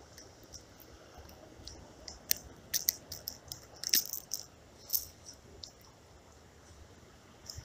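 A hooked smallmouth bass splashing and thrashing as it is lifted out of the water on the line. A run of short, sharp splashes and rattling clicks comes from about two to five seconds in.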